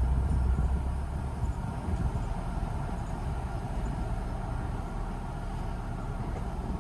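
Ford Bronco driving slowly off-road, heard from inside the cabin: a steady low rumble of engine and tyres that eases slightly after the first second or so.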